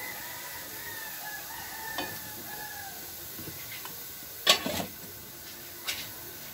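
A rooster crowing in the background, a wavering call lasting about three seconds. About four and a half seconds in comes a loud, sharp knock, with lighter clicks before and after it, as kitchen things are handled.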